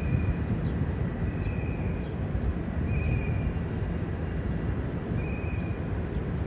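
Steady low outdoor rumble, uneven in level, with four short high-pitched tones sounding through it.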